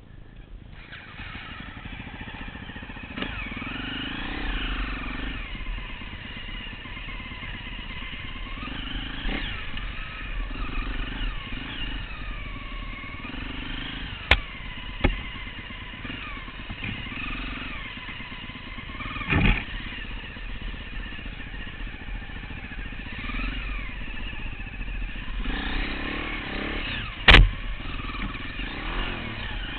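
Enduro motorcycle engine revving up and down over and over while riding a rough trail, with a few sharp knocks and thumps from the bike over the ground. The loudest knock comes near the end.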